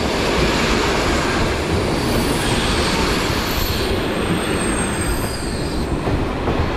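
A Czech Railways diesel railcar train passing close by at speed: a loud, steady rush of wheels running on the rails and the train body, with a faint high squeal in the middle, easing slightly as the cars go past.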